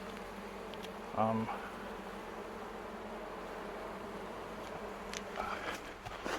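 Steady buzzing of a honey bee colony with the hive opened for inspection, and a short louder sound about a second in.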